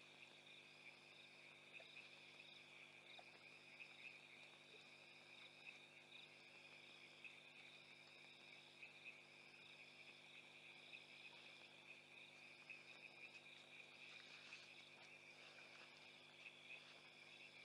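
Faint night chorus of crickets and other insects: a steady high trill, with a pulsing call above it about a second long that repeats every one and a half seconds or so.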